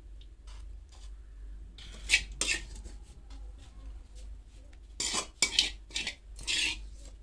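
A spoon scraping and clinking against a dish as thick gravy is scooped and spread over fish on a banana leaf. There are several short scrapes and clinks, the loudest about two seconds in and again between five and six and a half seconds in.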